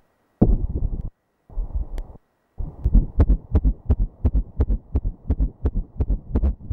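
Fetal heartbeat heard through a pulsed-wave Doppler ultrasound at 12 weeks of pregnancy: rhythmic whooshing pulses. The signal cuts in and out twice in the first two seconds, then settles into a steady beat of about three pulses a second.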